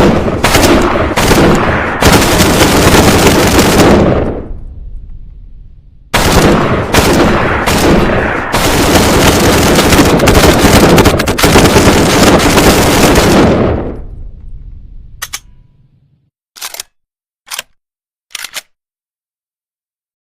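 PPSh-41 submachine gun firing on full auto in two long strings of bursts, each trailing off in a long echo. Four short, quieter sharp reports follow near the end.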